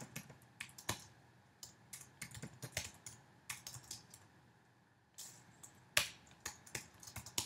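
Computer keyboard typing: irregular key clicks, pausing for about a second and a half past the middle before going on.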